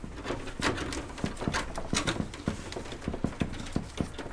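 PC power-supply cables being pushed and routed behind the motherboard tray of a computer case by hand: irregular light clicks, taps and rustles of the cables and their plastic connectors against the case.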